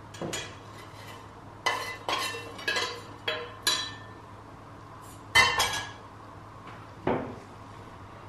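Metal spoon clinking against ceramic bowls and a plate as food is served out: a string of sharp, ringing clinks, the loudest about five seconds in, then a duller knock of crockery set down near the end.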